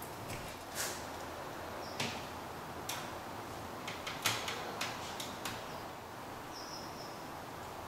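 Light, irregular clicks and taps of handling a CPVC pipe fitting and the solvent-cement applicator while gluing the joint, over a steady low hiss; the sharpest tap comes about four seconds in.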